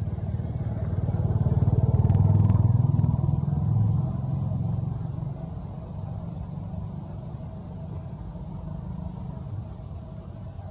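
A motor vehicle engine passing by: a low rumble that grows to its loudest about two to three seconds in, then fades to a steady background drone.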